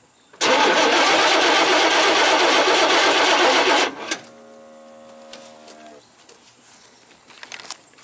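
1988 Chevy C1500's 5.0-litre V8 cranking on the starter for about three and a half seconds without firing. This is a crank-no-start with no spark, which points to the pickup coil or the ignition module. After the cranking stops, a quieter steady tone runs for about two seconds, followed by a few light clicks.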